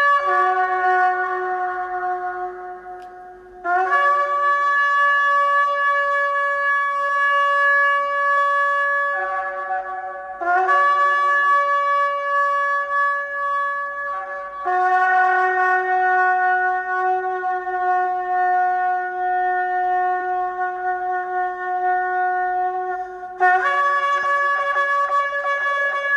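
Shofar (ram's horn) sounded in a series of long sustained blasts, each held for several seconds, the longest about eight seconds in the second half. The pitch steps between a low and a higher note a fifth above, with short breaks where a new blast begins.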